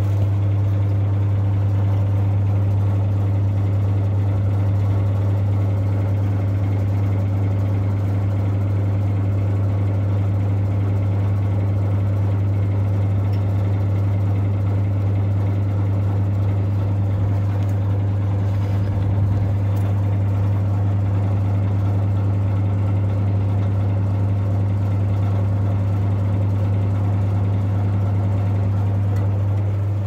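Electric fan running with a steady, loud mains hum.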